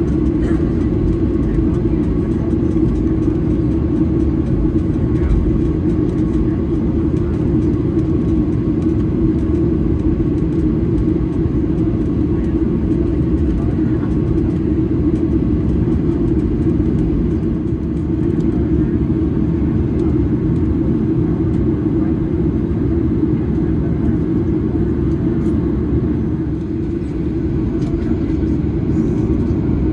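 Steady low rumble of a moving vehicle, heard from inside.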